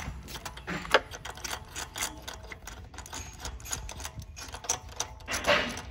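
Hand socket ratchet clicking in quick runs as a bolt is worked, with light clinks of metal tools.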